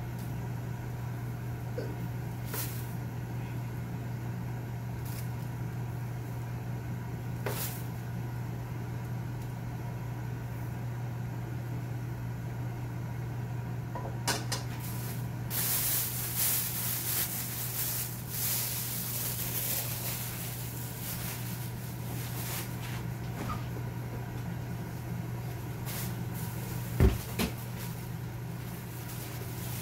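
Kitchen handling sounds over a steady low hum: a few light clicks of a spoon and utensils, a stretch of rustling about halfway through, and two sharp knocks near the end.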